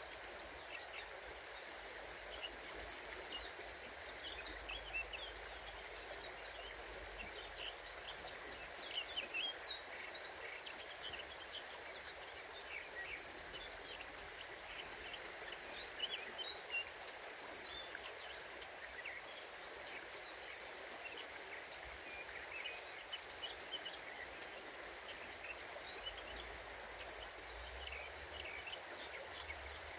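Songbirds chirping, many short high calls scattered throughout, over a steady rush of flowing river water.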